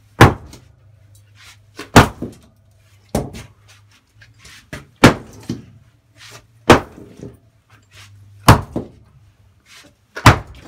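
Sledgehammer striking a concrete floor slab, seven heavy blows about every one and a half to two seconds, breaking up the concrete.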